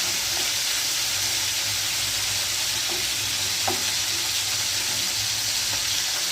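Chicken thighs frying in a pan with chopped onion and garlic, a steady sizzle of hot fat rendered from the chicken.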